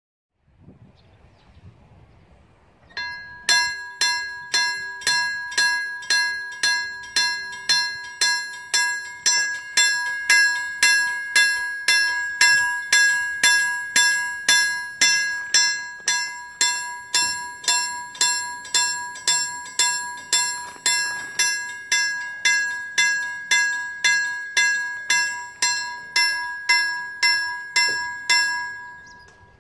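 Railway level crossing warning bell ringing in steady, even strikes, about two a second, starting a few seconds in and stopping just before the end. It sounds while the barriers are down and the red lights show, warning of an approaching train.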